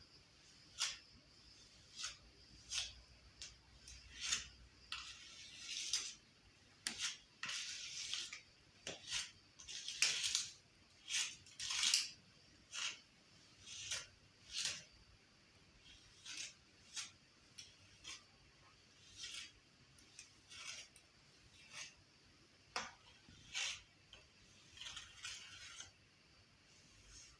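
A metal hand tool scraping and clinking against a wall in short strokes, about one a second, with a few longer scrapes in the middle, as in wall repair work.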